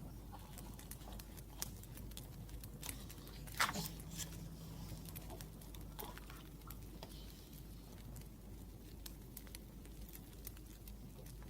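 Wood fire crackling softly, with scattered small pops, and one louder knock about three and a half seconds in followed by a brief low hum.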